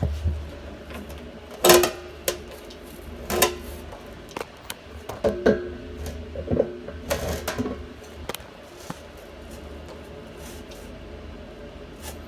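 Irregular clicks and knocks of hands and tools on the float valve's nut and the RO tank wall as the nut is tightened onto the valve threads. Some knocks ring briefly, and they grow sparser after about nine seconds.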